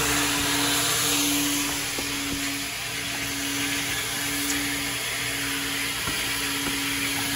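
Coin-operated car wash vacuum running: a steady motor hum with a rushing hiss of air drawn through the hose as a car's interior is vacuumed.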